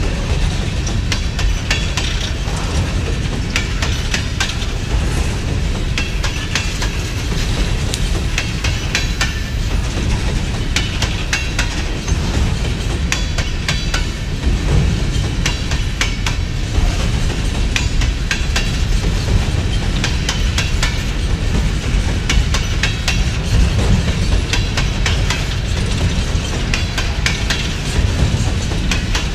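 Empty aluminum coal gondolas of a BNSF unit train rolling past, their steel wheels clicking over the rail joints in a constant stream of sharp clicks over a steady low rumble.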